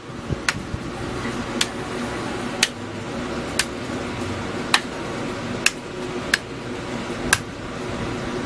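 Front-panel toggle switches on a Behringer T1952 tube compressor clicked about eight times, roughly once a second, over a steady hum.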